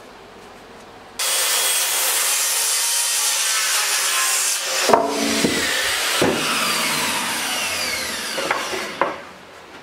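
Handheld circular saw crosscutting a pine 2x6. It starts suddenly about a second in, with knocks about halfway through as the cut-off piece drops, and falling pitch lines later on as the blade winds down.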